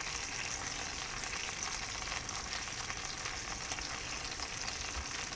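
Beef roast and melted butter sizzling steadily in the hot pot of an electric pressure cooker, with the dry seasoning mixes just sprinkled on.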